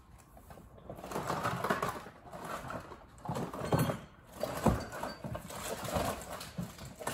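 Hands rummaging through a cardboard pallet box of tools and tool bags: irregular rustling and scraping, with a few short knocks as items are moved.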